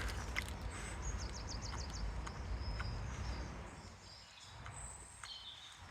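Small birds chirping, with a quick run of repeated high notes a second or so in and a few more high calls near the end, over a steady low rumble.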